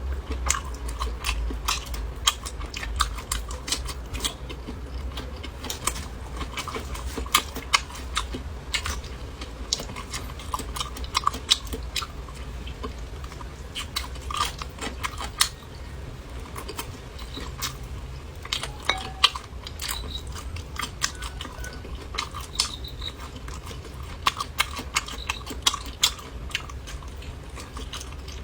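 A person eating close to the microphone: chewing and biting, with many sharp, irregular mouth clicks and smacks over a low steady hum.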